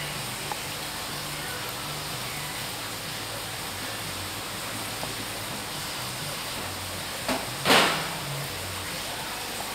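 Steady hiss of background noise, with a brief louder rush of noise nearly eight seconds in, just after a small click.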